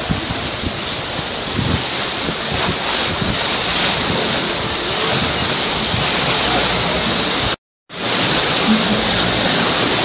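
Rushing white water of a river rapids ride churning around the raft in a steady, loud wash. The sound cuts out completely for a moment about three-quarters of the way through.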